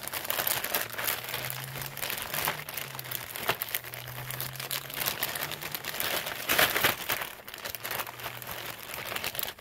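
Clear plastic packaging bags crinkling and rustling in irregular bursts as they are handled, with a faint low hum underneath through the middle of it.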